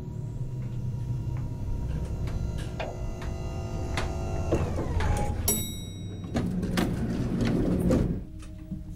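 Eerie score music over the clanks of an old lift, with a bright chime about halfway through. Then the lift's sliding doors rumble and stop abruptly near the end.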